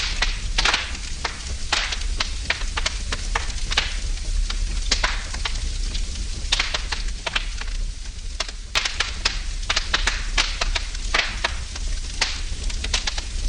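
Wood fire in a fireplace burning and crackling, with irregular sharp pops and snaps several times a second over a steady low rumble.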